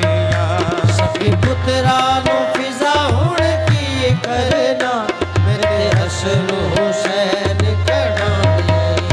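Qawwali music: harmoniums and tabla playing with singing and hand claps.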